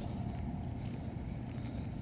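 Steady low rumble of a car moving slowly, engine and tyre noise.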